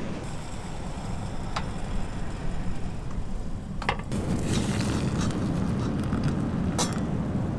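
Portable gas camp stove burning under a saucepan of water: a steady low rumble that grows a little stronger about four seconds in, with a few light metal clicks.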